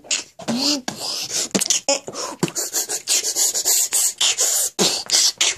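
A boy beatboxing: a quick run of mouth clicks, pops and hissing hi-hat sounds, with a few short voiced notes.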